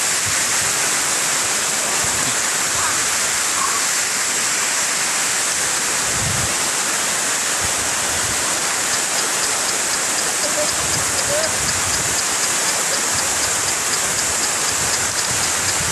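Waterfall rushing steadily, with faint voices in the background.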